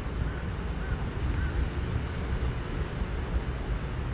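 Wind rumbling on the microphone over faint outdoor background noise, with a few faint distant calls.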